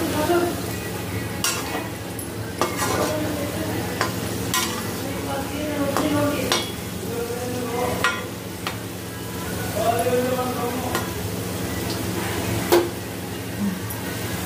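Potato pieces sizzling as they fry in ghee in a steel kadhai, while a perforated steel skimmer stirs them and scrapes and clinks against the pan every second or two, most sharply once near the end. A steady low hum runs underneath.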